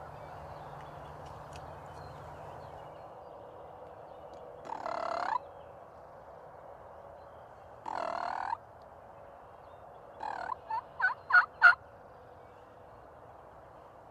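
Eastern wild turkey toms gobbling: two gobbles about three seconds apart. Then comes a quick run of about six short, yelp-like notes that get louder toward the end.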